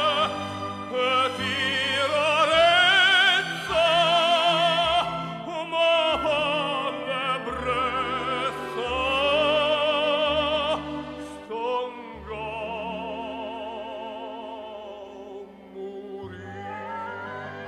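Operatic tenor singing a Neapolitan song over orchestral accompaniment, holding long notes with a wide, fast vibrato. In the last few seconds the voice recedes and the orchestra plays a rising phrase.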